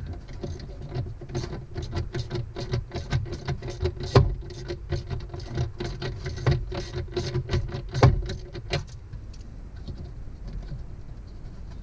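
Socket ratchet clicking as it backs off the stiff nylon nuts on the back of a boat speedometer gauge: a quick, uneven run of ticks with two louder clacks, about four and eight seconds in, thinning out near the end.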